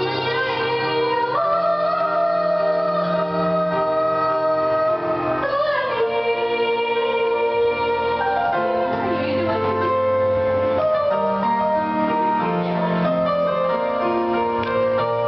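Two girls singing a graduation song together in two-part harmony into karaoke microphones over a backing track with piano, holding long notes; the harmony, by their own account, doesn't quite come together.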